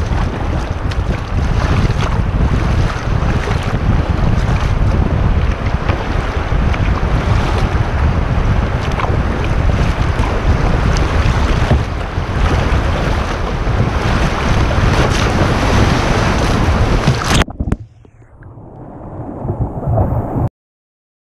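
River rapids rushing and splashing against a kayak's bow, with heavy wind buffeting on the microphone. About three-quarters through the sound drops away suddenly, swells back briefly, then cuts off into silence near the end.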